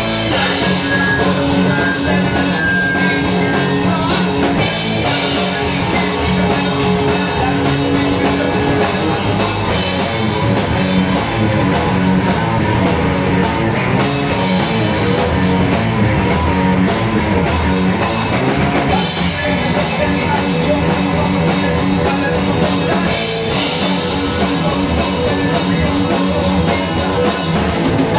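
Live rock band playing loudly and without a break: electric guitars, bass guitar and drum kit.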